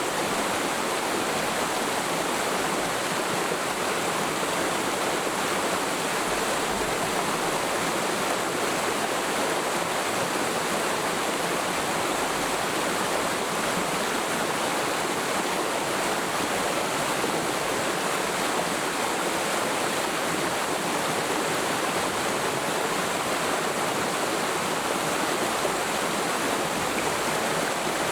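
Forest mountain stream flowing steadily over rocks, a constant rushing of water with no change in level.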